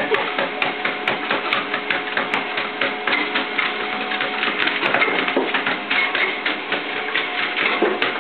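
A basenji–whippet mix dog's paws striking a moving treadmill belt in rapid, even footfalls, over the treadmill motor's steady hum.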